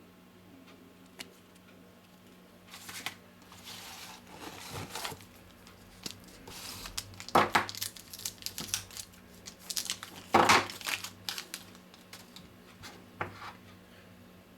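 Plastic packaging being handled and torn open, crinkling and rustling, with two loud sharp crackles a few seconds apart partway through.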